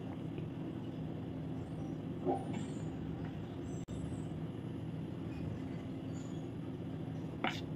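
Steady low mechanical hum in the background. Two light taps, about two seconds in and near the end, come as a spoon scoops melted white chocolate into a silicone mould.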